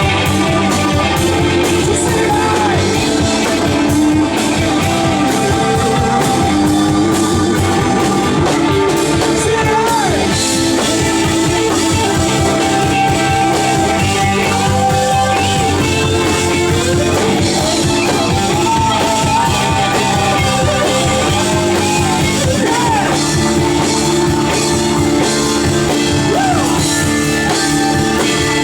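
A rock band playing live: loud, steady music with a drum kit and guitars, with no break.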